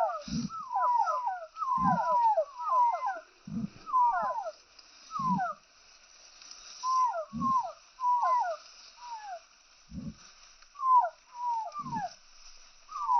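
Young chickens peeping: many short, downward-sliding peeps overlapping, with a low cluck about every one and a half to two seconds, like a hen clucking to her brood.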